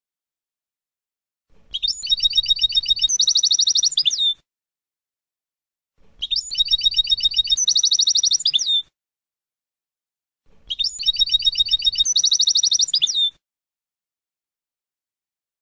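European goldfinch song in the Palestinian 'Abu Khalil' style, used to tutor young goldfinches. The same phrase plays three times, about three seconds each with pauses between. Each phrase is a run of quick, high chirping notes that turns into a fast trill and ends on a falling note.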